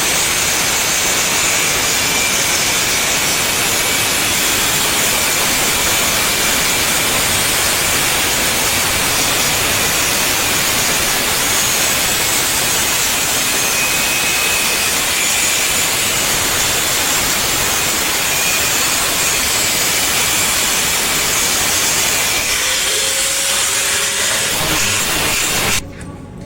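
Abrasive power tool working a sheet-metal body panel: a loud, steady, hissing rush that cuts off suddenly about a second before the end.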